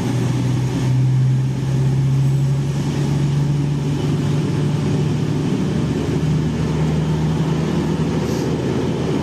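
East Midlands Railway Class 222 Meridian diesel train's underfloor engines running at the platform, a steady loud drone with a low hum.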